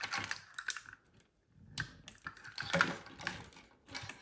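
Plastic wiring-harness connector and cables clicking and rattling as they are handled and plugged into the back of an Android car head unit, in several quick clusters of clicks.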